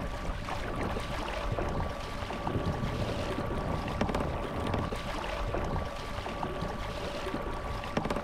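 Kayak's electric trolling motor (a Newport NK180) running at a steady speed, a constant whine over water noise against the hull, with a few light knocks.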